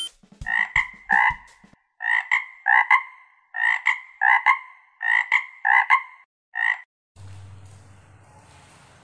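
Frog croaking: about fifteen short, clipped calls, many in quick pairs, stopping about seven seconds in. A faint low hum follows.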